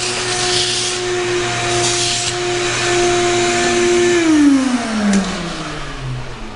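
Vacuum cleaner running steadily with a motor whine over rushing air, then switched off about four seconds in, its whine falling in pitch as the motor spins down.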